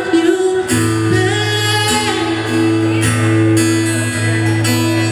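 Solo live performance: a strummed acoustic guitar with a man singing over it. It is heard through a camera's built-in microphone from the audience.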